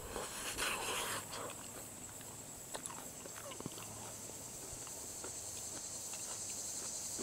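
Steady high-pitched drone of summer insects, growing louder toward the end. A brief rustling noise about a second long near the start, and a few faint clicks.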